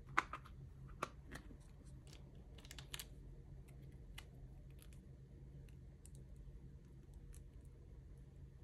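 Hard plastic clicks and taps as a hinged plastic nail-tip case is handled and opened and the clear soft gel tips inside are picked out. The sharpest clicks come in the first three seconds, followed by sparse faint ticks as a tip is held against a fingernail.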